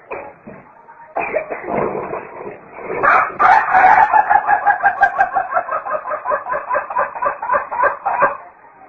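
White rooster crowing a long, breathless crow. The crow begins about a second in and after a couple of seconds breaks into a run of rapid stuttering pulses, about five a second, that cuts off suddenly near the end. The crow of a rooster short of breath.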